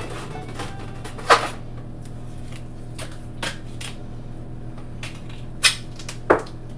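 Duct tape being pulled off the roll and torn into strips: short, sharp rips, the loudest about a second in and twice close together near the end, with quieter crackles between, over a steady low hum.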